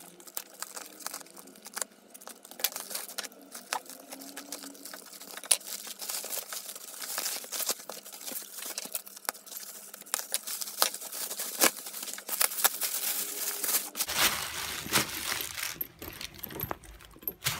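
Plastic packaging being opened by hand: a taped postal mailer cut with scissors, then bubble wrap pulled off, with rustling and crinkling of plastic film and many small crackles and clicks. It gets louder near the end as the wrap is pulled away.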